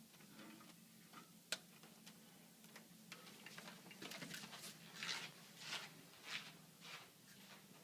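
Faint handling sounds of plastic membrane plates and rings being fitted onto a plate-and-frame UF module stack: a few light clicks, one sharp click, then a run of about five short rustling scrapes. A steady low hum sits underneath.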